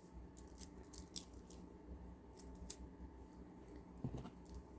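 Faint, scattered light clicks of plastic beads as beaded kandi bracelets are handled.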